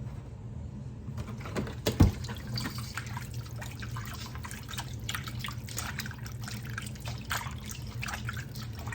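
Water splashing and sloshing as raw chicken feet are washed by hand with vinegar, with a sharp knock about two seconds in.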